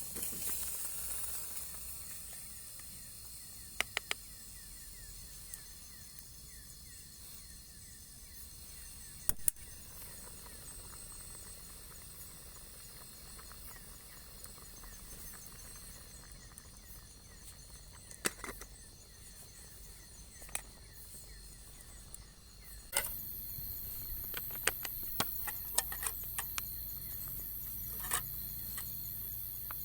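Outdoor ambience with a faint steady insect trill and a few scattered sharp cracks. About two-thirds through, a steady hiss comes up and the cracks come more often.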